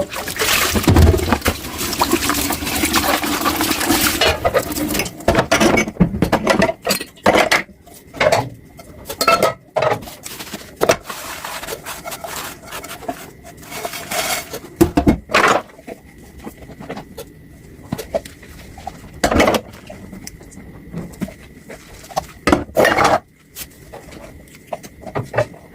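Tap water running into a sink for the first few seconds, then stopping. After that, dishes and cutlery knock and clink against each other in the sink at irregular intervals, over a faint steady high tone.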